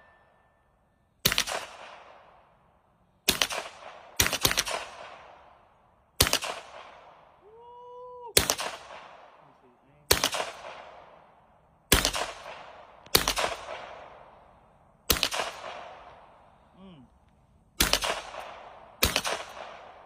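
Suppressed FN 10mm pistol firing eleven single shots at an uneven pace, about one to three seconds apart. Each shot is a sharp report followed by a decaying echo.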